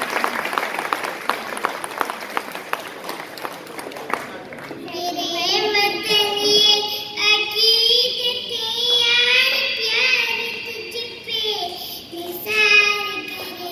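Audience clapping for about four seconds, then a young girl sings a nagma (song) into a microphone, a solo high child's voice holding and bending long notes.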